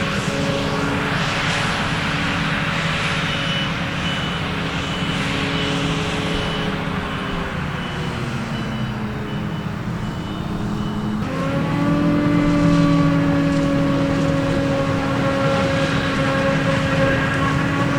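Diesel engines of maize-harvest machinery running; the engine note sinks slowly, then about eleven seconds in changes abruptly to a higher, steady note. A faint high beep repeats through the middle of the stretch.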